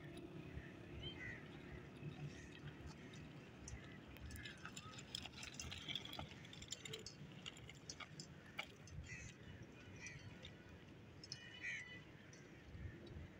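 Faint open-air ambience: a low rumble with scattered light clicks and short, high chirps every second or two.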